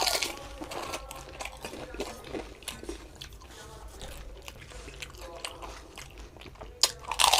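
Crisp fuchka (panipuri) shells crunching as they are bitten, with chewing of the filled shells in between; a loud crunch right at the start and another cluster of loud crunches near the end.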